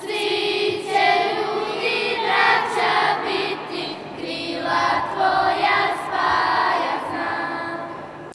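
A group of young schoolgirls singing a song together in unison, cut off suddenly at the end.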